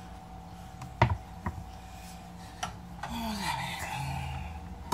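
A sharp knock about a second in and a lighter one half a second later, then a short, low hum from a person, falling in pitch.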